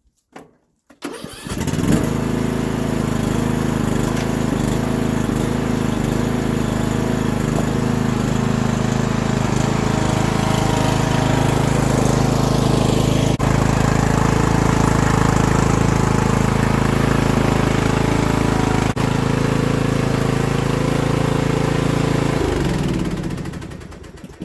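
Riding lawn mower engine starting on an electric starter, catching at once on a good battery, then running steadily at a fairly constant speed. It is shut off near the end and runs down.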